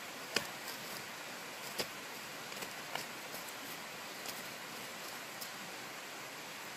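Sticks prodding and raking through ash and charred wood in a fire pit, giving a few light knocks and clicks over a steady background hiss; the sharpest knock comes about half a second in.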